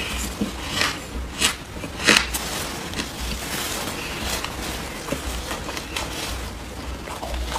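Close-miked chewing of soft shaved ice: a run of soft crunches, the loudest in the first two seconds or so, then fainter ones.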